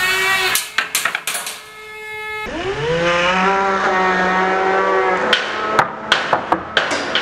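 Air-driven fidget spinner whining as it spins up, the pitch rising then holding steady, cut by several sharp cracks about a second in. A second spin-up whine ends near the end in a rapid series of sharp bangs as the spinner breaks apart and its pieces strike the steel rig.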